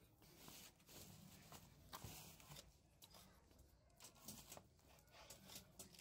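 Near silence, with faint clicks and scratches as thin wooden strips are handled and marked with a pencil on a wooden block.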